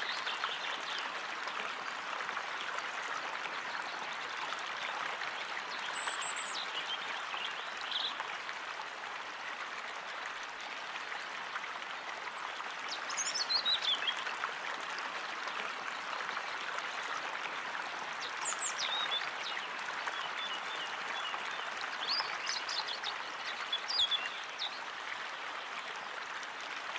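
Steady rush of flowing water, with several short bird calls over it, a few of them falling in pitch.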